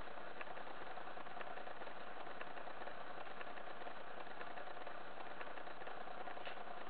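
A chipmunk's plastic exercise wheel turning as the chipmunk runs in it: a steady whirr with faint scattered ticks.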